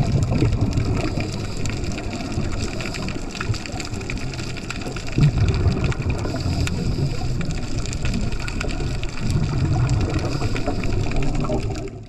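Underwater noise of scuba divers' exhaled regulator bubbles rushing and gurgling, with a low rumble of water on the camera housing. It surges a few times and cuts off suddenly at the very end.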